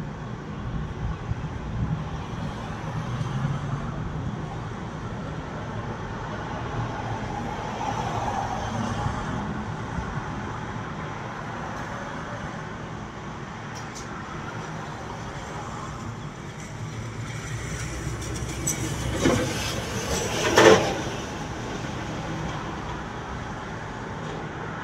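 Steady road traffic noise, with two brief louder rushes of noise a little over three-quarters of the way through.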